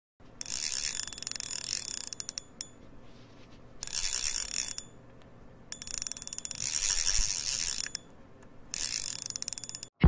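Fishing reel ratchet clicking fast, in four runs of one to two seconds each with short pauses between.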